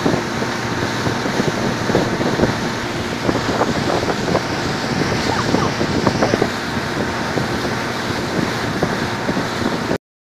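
Wind buffeting the microphone over rushing, splashing sea water from a boat running at speed beside a ship's bow wave, with many short slaps of water. The sound cuts off suddenly near the end.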